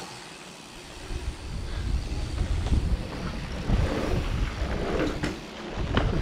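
Wind buffeting a helmet-mounted camera's microphone and bike tyres rolling over a dirt trail as a mountain bike rides downhill, swelling after about a second. A couple of sharp knocks near the end.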